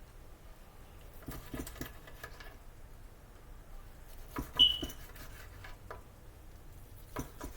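Light kitchen clatter: scattered clicks and taps of utensils and cookware in small clusters, with one short high squeak about four and a half seconds in.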